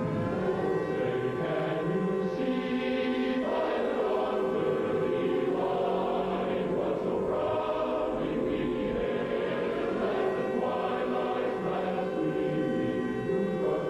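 Choral music: a choir singing long held notes over a steady drone.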